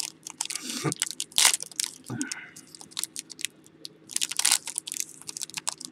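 Plastic wrapping of a sealed pack of trading cards crinkling and tearing as it is opened by hand: a run of sharp crackles and clicks with a couple of louder rustles.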